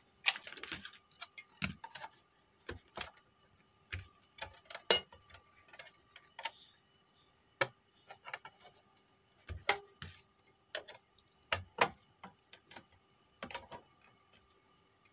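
Irregular clicks, taps and knocks of small hard objects being handled and set down on a workbench, a USB pen drive and a car stereo unit among them, over a faint steady hum.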